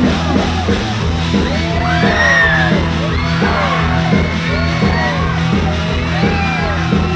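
Live band music played loud through a concert PA, with a woman's amplified voice singing and yelling in sweeping, gliding phrases over a steady bass line.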